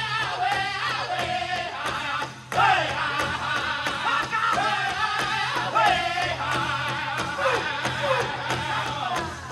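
Powwow drum group singing high-pitched in unison while beating a big powwow drum together at a steady beat. The singing breaks off briefly about two and a half seconds in, then comes back in.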